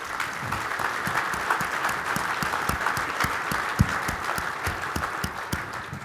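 Audience applauding: many people clapping, building up at the start and dying away near the end.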